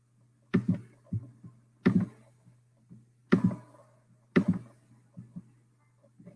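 A series of loud percussive hits, roughly one every second and a half, each ringing out briefly, with softer taps between them over a faint steady hum. This is the opening of a played video's soundtrack.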